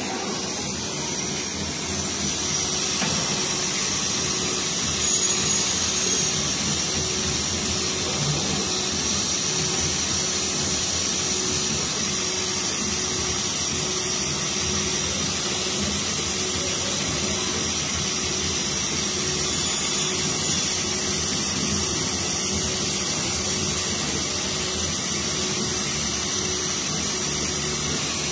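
CO2 laser engraving machine running while it cuts wood: a steady hum with an airy hiss, typical of its cooling and exhaust fans and air-assist pump.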